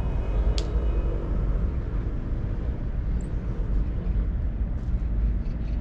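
Steady low rumble of wind buffeting the microphone in open-air field ambience. A single sharp crack comes about half a second in, with faint distant voices.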